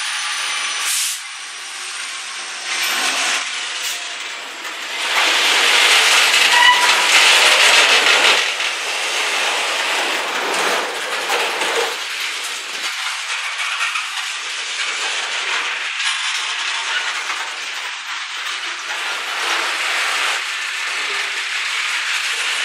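Freight train of covered hopper cars rolling past at close range, with steady wheel-on-rail noise. It is loudest from about five to eight seconds in.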